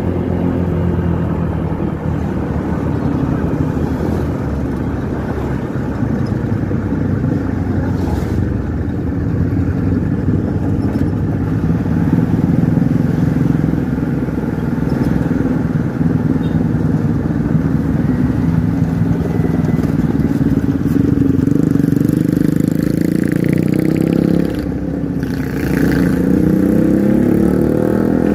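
Motorcycle engine running under way, with road and wind noise. The engine note holds fairly steady, drops briefly near the end, then climbs again as the bike accelerates.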